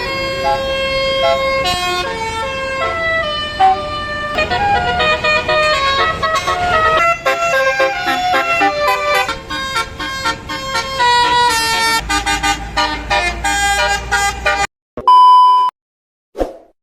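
Bus 'telolet' basuri horn, an electric multi-note horn, playing a melody of changing notes, several sounding at once, for about fifteen seconds. It stops abruptly, and after a short gap a single loud steady tone sounds briefly.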